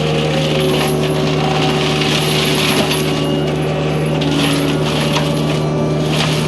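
Kubota U55-4 mini excavator running its Prinoth M450e-900 hydraulic mulcher head: a steady low engine hum under higher hydraulic whines that shift in pitch, with hissing noise that swells and fades.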